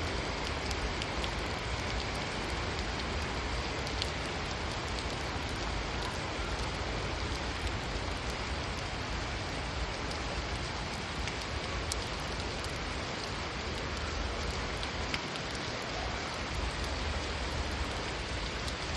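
Steady rain falling, a continuous hiss with a few sharper drop ticks and a low rumble underneath.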